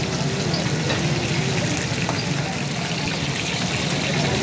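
Spice-coated fish pieces deep-frying in a wide pan of hot oil, the oil sizzling and bubbling steadily.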